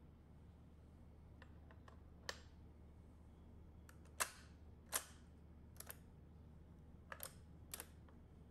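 Sharp mechanical clicks of a 1968 Sony TC-560D reel-to-reel deck's function lever and switch mechanism being moved by hand, about six separate clacks, the loudest two in the middle.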